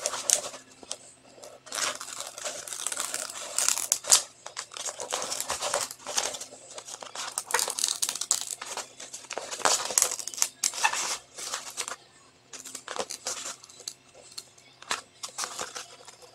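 A rolled diamond painting canvas and its plastic wrapping crinkling and rustling in irregular bursts as they are handled and unrolled.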